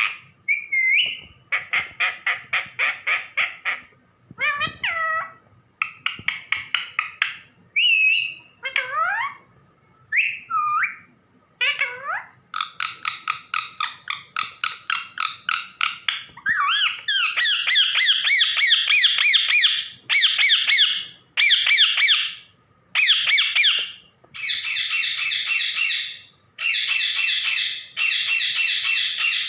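Pet parrot calling. In the first dozen seconds it gives short whistled glides between runs of rapid harsh chattering notes. After that come long, louder bursts of fast grating squawks, repeated with short gaps.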